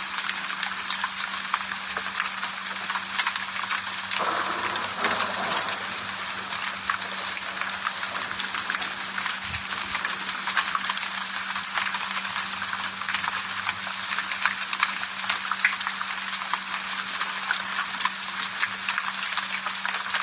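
Steady rain falling, with many individual drops tapping sharply on a hard surface.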